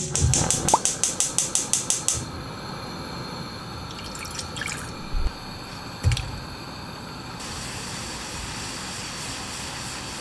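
A quick run of about a dozen clicks, then water simmering with a steady hiss in a pan on a gas stove. About six seconds in, a block of cream-stew sauce drops into the hot water with a plop.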